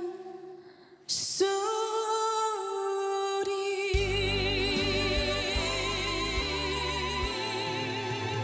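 A voice sings a slow Korean trot ballad over musical accompaniment. After a brief dip about a second in, the voice comes back in. Bass and backing enter about four seconds in, under a long held note with vibrato.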